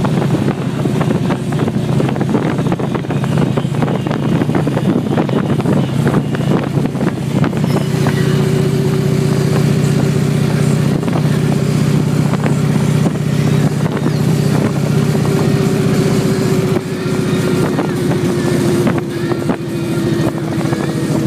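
Harley-Davidson CVO touring motorcycle's V-twin engine running steadily at road speed, heard from the saddle. Its note firms up and rises slightly about eight seconds in, then eases a little lower near the end.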